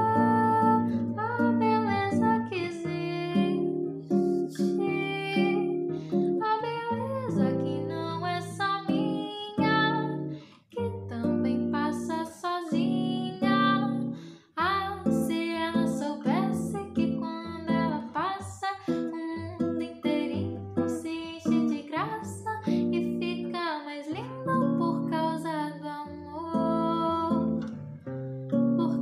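A young woman singing a song while accompanying herself on acoustic guitar, playing chords under the melody, with two brief breaks between phrases.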